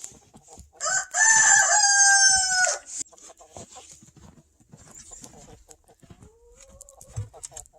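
A rooster crowing once, a single long call of about two seconds starting about a second in, followed by faint scattered clicks.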